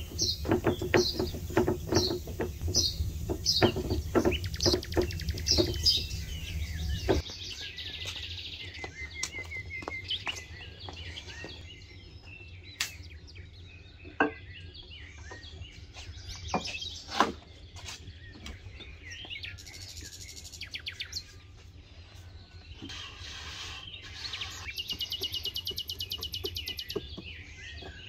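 Small birds chirping, with a fast trill near the end. For the first several seconds a wooden rolling pin knocks rhythmically on a wooden board as dough is rolled out.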